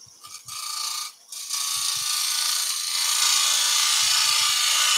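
Quarter-inch bowl gouge cutting across the face of a wood blank spinning on a lathe, a steady hiss of shavings coming off. After a brief first touch and a short pause, the cut settles in about a second and a half in and grows louder about three seconds in. This is a clean-up cut to true the surface before drilling.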